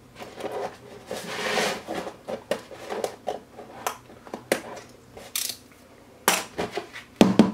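Razor blade scraping the drilled burrs off the holes in the bottom of a Sterilite plastic basket: a longer scrape early, then short irregular scrapes and clicks, with a few louder knocks of the plastic being handled near the end.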